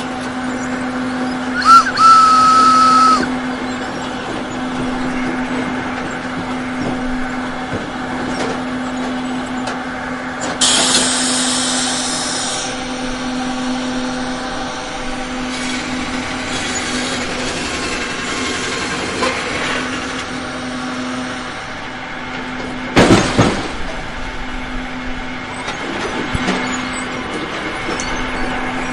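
Logging sound effects over a steady low machine hum: a steam locomotive whistle blows briefly about two seconds in, a hiss follows at about eleven seconds, and a loud wooden clatter comes near the end.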